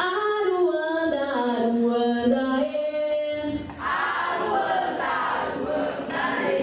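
A group of voices singing a Maculelê song together, holding a long note that slides downward, then starting a new phrase about four seconds in.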